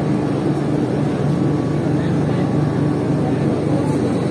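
Steady low drone of a ship's machinery, holding an even pitch without change.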